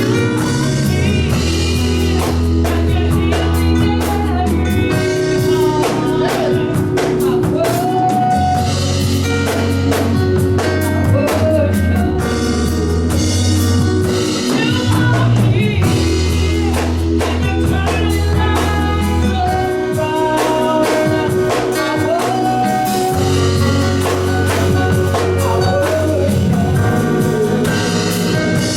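Gospel music with singing over a drum kit and bass, the bass holding long notes that change every few seconds.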